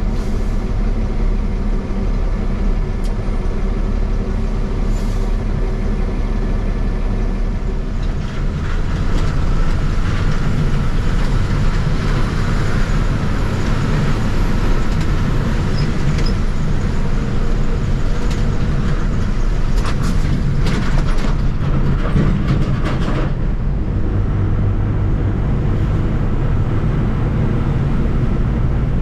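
Truck driving on the road: a steady engine drone with road rumble that gets louder about eight seconds in, and a short run of clicks and rattles around twenty seconds in.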